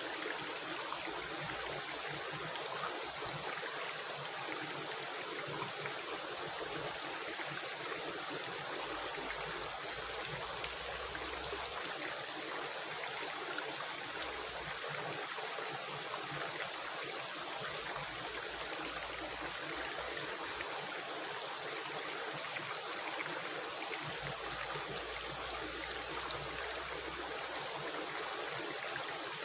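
A stream of running water rushing and gurgling steadily.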